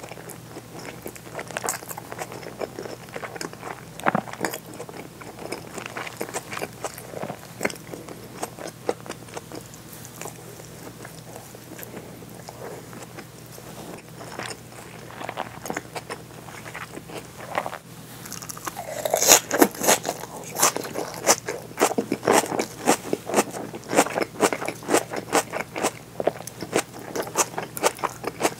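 Close-miked chewing of seared bonito tataki with its raw onion and green onion garnish: wet mouth clicks and crunching. The crunching grows denser and louder about two-thirds of the way in.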